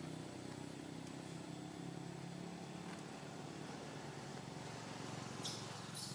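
Steady low motor hum in the background, with two brief high hissing rustles near the end.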